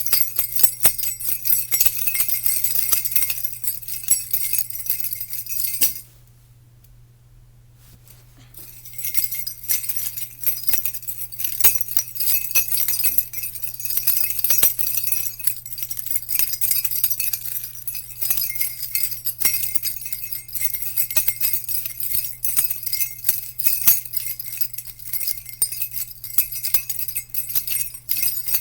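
Jingle bells shaking in a continuous bright jingle. The sound breaks off for about two seconds about six seconds in, then resumes.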